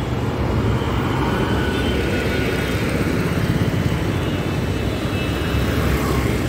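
Yezdi Roadster motorcycle riding through city traffic: a steady low engine rumble mixed with road and wind noise.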